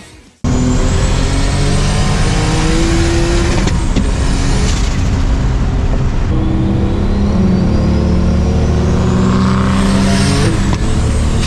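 Car engine accelerating hard through the gears, its pitch climbing and then dropping sharply at the shifts about 4 and 10.5 seconds in. A thin high whine rises alongside the revs.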